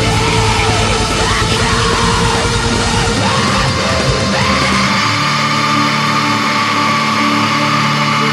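Black metal music: harsh yelled vocals over dense, fast drumming and distorted guitars. About three seconds in, the pounding low end drops away and long sustained chords ring on.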